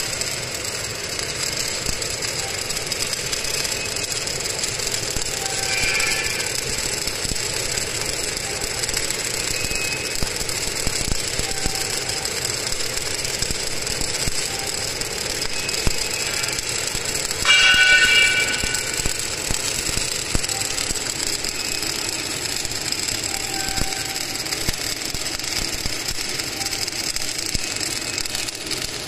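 Steady mechanical running noise with fine, rapid ticking throughout, and a brief louder, higher-pitched sound about eighteen seconds in.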